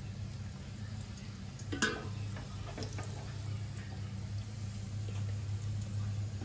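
Stovetop cooking: a steady low hum, with a utensil clattering against a pan once about two seconds in and a few fainter clicks later.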